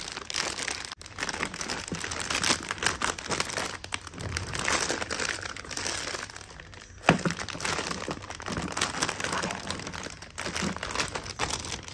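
Thin clear plastic packaging bag crinkling and rustling as hands pull it off a plastic blender jar, with one sharper snap about seven seconds in.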